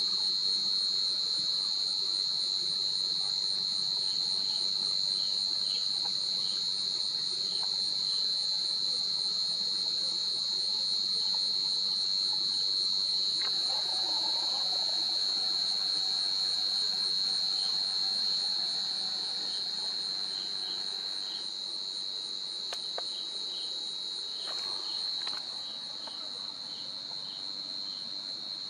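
Chorus of forest insects: a steady shrill drone, a fast pulsing trill above it and soft chirps repeating at an even pace below it. It eases slightly in loudness a little past the middle.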